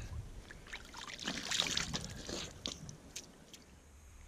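Water sloshing and splashing in a run of short splashes, then a couple of light clicks near the end.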